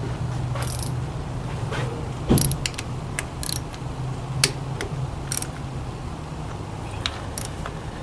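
Toyota 2AZ-FE four-cylinder engine running at a steady idle, with scattered metallic clicks and jingles over it, the loudest about two seconds in.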